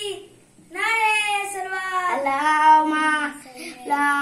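A young boy singing unaccompanied in long held notes: a short pause for breath, one sung phrase of about two and a half seconds, then a new phrase starting near the end.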